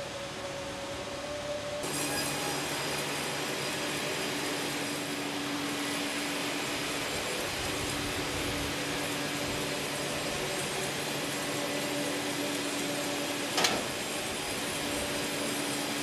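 A large band sawmill cutting lengthwise through a big log: a steady hiss and whine with a few held tones, and one sharp knock late on. For the first two seconds a different steady machine hum is heard.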